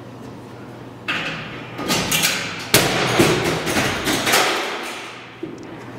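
A camcorder dropped in a tiled stairwell, hitting with a series of thuds and clattering knocks that echo off the tile. The first hit comes about a second in and the loudest a couple of seconds later, then the clatter dies away.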